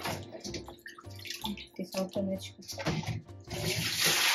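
Water running from a tap, starting about three and a half seconds in and the loudest sound, over background music with a steady bass line.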